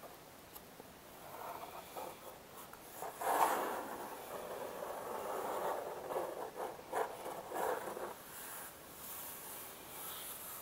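Long fingernails scratching and rubbing the inside of a cardboard box, in uneven dry strokes. It starts faintly about a second in, is loudest in the middle and tails off near the end.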